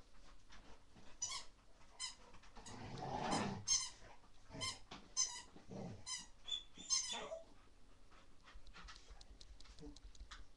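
Rottweiler puppy in a play frenzy giving about seven short, high-pitched yips and squeals over the first seven seconds, with a louder scuffling, growly burst about three seconds in. Fainter clicks and movement follow.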